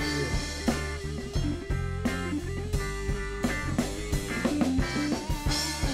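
Rock band playing live: an electric guitar plays a melodic line over a drum kit, with no singing.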